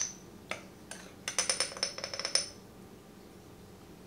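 Measuring spoon clinking against glass as cinnamon is scooped from a spice jar and tipped into the mixing bowl. A few separate light clicks come first, then a quick run of small ringing taps lasting about a second.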